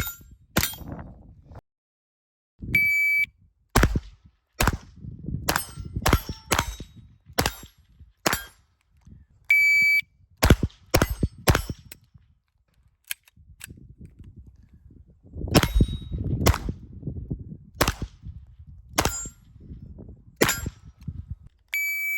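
Shot-timer start beeps, each followed by a string of .22 rimfire semi-auto shots with the ringing ping of bullets striking steel plates. There are two strings, the beeps coming about 3 and 10 seconds in, and a third beep at the very end.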